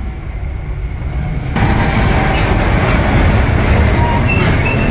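Passenger train running at speed, heard from inside the coach: a steady low rumble of wheels on the rails that turns sharply louder and harsher about a second and a half in.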